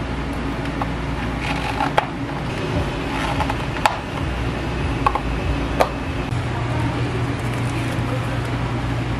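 Clear plastic dome lids pressed onto plastic iced-drink cups, making several sharp snapping clicks over a steady low machine hum.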